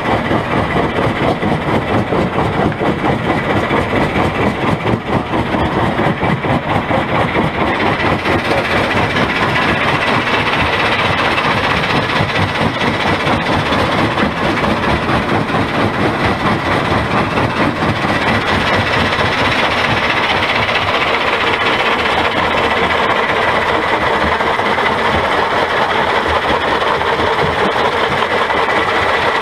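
Rock-crushing plant in operation: a conveyor belt carrying crushed stone, with the loud, steady din of its rollers, motors and crushers and the rattle of rock on the belt.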